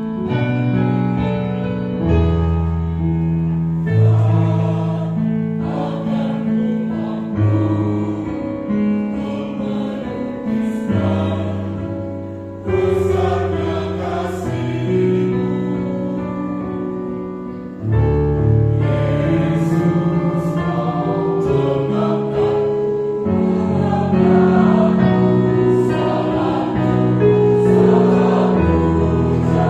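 Mixed church choir of men and women singing a hymn in parts, in held chords that move phrase by phrase, with a fuller entry about two-thirds of the way through.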